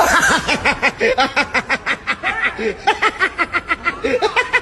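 A man laughing hard, a fast unbroken run of short laughs at about five a second.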